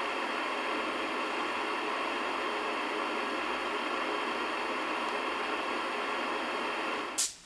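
Steady hiss of static-like white noise. It ends abruptly about seven seconds in with a short high-pitched flare.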